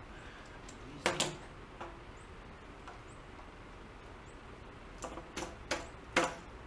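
PVC pipes with elbow fittings knocking and clacking against each other and the floor as they are handled and set down: a double knock about a second in, then a quick run of knocks near the end.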